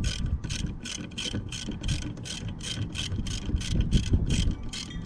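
Socket ratchet clicking in a steady rhythm of about four strokes a second as a 6 mm brush-plate bolt is backed out of a trolling motor lower unit.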